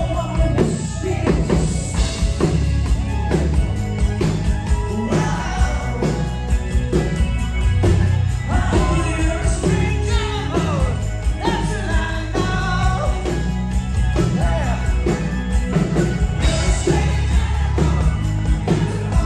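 Live band playing a song with a steady drum beat while a man sings into a microphone through the PA, heard from within the audience.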